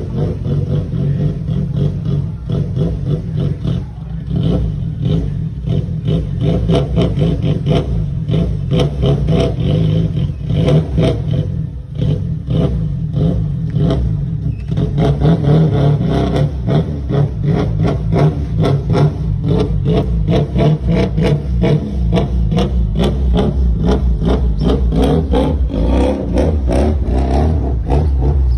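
A car engine running loudly and being revved, with a rattling clatter over a heavy low rumble; the pitch rises a little near the end.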